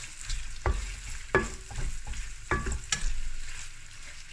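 Twice-cooked pork and red peppers sizzling in hot oil as a wooden spatula stir-fries them in a white-coated wok, scraping, with a few sharp knocks of the spatula against the pan.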